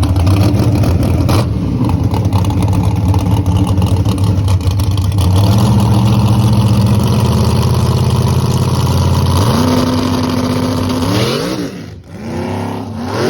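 Race truck's V8 engine running steadily, then revving with several rising sweeps in pitch in the last few seconds, with a brief drop-off about twelve seconds in.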